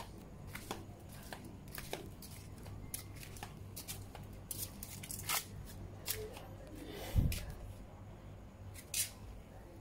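Scattered light clicks and scuffs of footsteps and of a phone being handled while someone walks across a tiled floor, with one louder low thump about seven seconds in.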